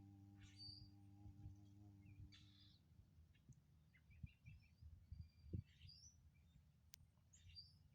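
A man's low, steady 'om' chant, held on one pitch, ends about two and a half seconds in. Birds sing and call faintly, with short high calls repeating every second or two.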